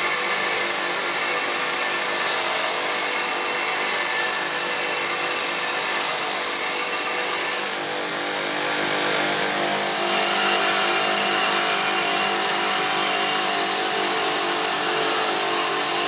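Belt grinder running with a steel knife blade, held at a fixed angle in a grinding jig, pressed against the abrasive belt: a steady grinding hiss over the machine's motor hum. The grinding eases for about two seconds partway through, then carries on.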